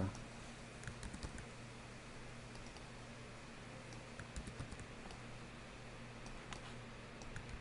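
Faint, scattered clicks of a computer keyboard and mouse in use, a few irregular taps over a low steady hum.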